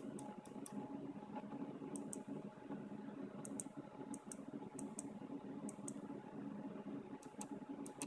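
Logitech G903 wireless gaming mouse buttons being pressed and released, about eight short sharp click pairs spaced irregularly, over a steady low hum.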